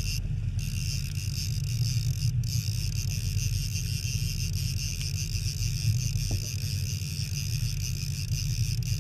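Boat running through choppy water: a steady low engine and hull rumble under a steady high-pitched whine that cuts out briefly twice near the start.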